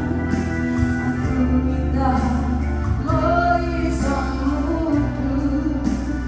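A woman singing into a microphone over instrumental accompaniment with a steady bass, holding some notes long.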